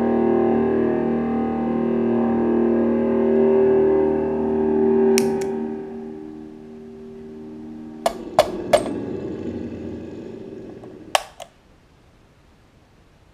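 Distorted electric guitar chord through a fuzz pedal, sustaining and slowly dying away. About five seconds in the fuzz pedal's footswitch clicks off, and later there are three sharp clicks with a short ringing tail, then one more near the end before it goes nearly quiet.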